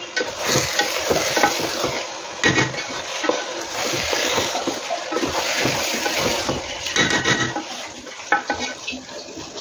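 Wooden spatula stirring half-cooked biryani rice in a hot nonstick pan, repeated scraping strokes over a steady hissing sizzle from the simmering liquid.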